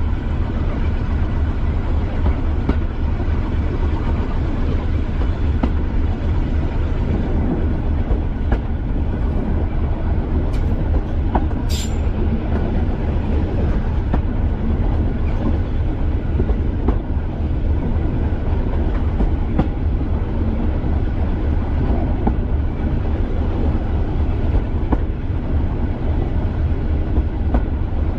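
Class 205 'Thumper' diesel-electric multiple unit under way, its English Electric four-cylinder diesel running with a steady low pulsing beneath the rumble of the wheels on the rails. Occasional clicks, and one brief sharp squeak about twelve seconds in.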